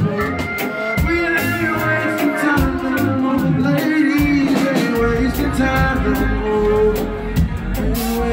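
Live band playing loud music with a singer's voice over drums and electric guitar, heard from the audience.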